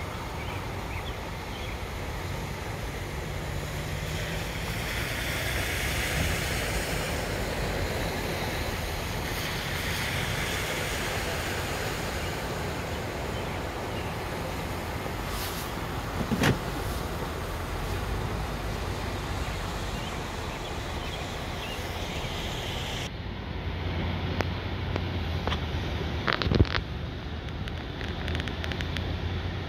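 Cars driving slowly through floodwater on a road, their tyres pushing up sprays of water with a steady rushing splash over engine hum and wind on the microphone. The splashing swells twice as vehicles pass, and a couple of brief knocks sound around the middle and near the end.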